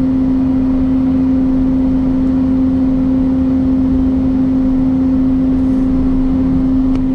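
Vehicle-mounted turbo mist-blower sprayer running at full output, blasting pesticide mist: a loud, steady drone with one strong unchanging hum.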